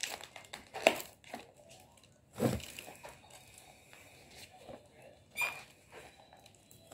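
Takeout food containers and their packaging being handled: a few separate knocks and rustles, with a short squeak about five and a half seconds in.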